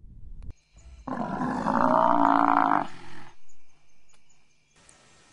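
African buffalo bull bellowing in distress while a lioness smothers its muzzle, its lower jaw left free to breathe and call. One long bellow begins about a second in, followed by two short, quieter calls.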